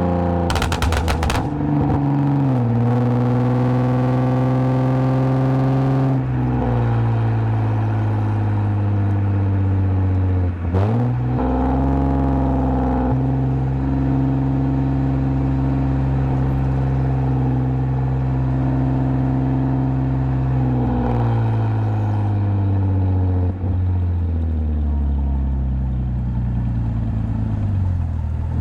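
2010 Lexus IS250 AWD's 2.5-litre V6 through an aftermarket full exhaust with valved mufflers, running while the car is driven. The drone holds steady stretches and drops in pitch at each gearchange, with a quick dip and rise about a third of the way in and a gradual fall in pitch near the end as the car eases off.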